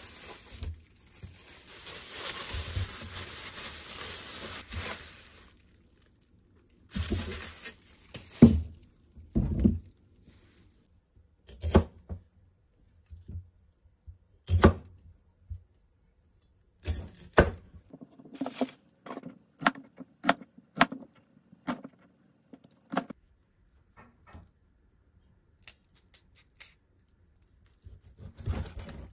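A plastic produce bag rustling for several seconds as it is handled and opened. Then a kitchen knife cutting green onions and raw chicken on a plastic cutting board: single knocks a second or two apart, then a quicker run of chops.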